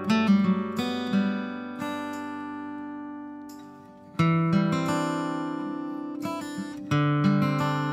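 Background music: an acoustic guitar strumming chords that are left to ring and fade, with fresh strums about four and about seven seconds in.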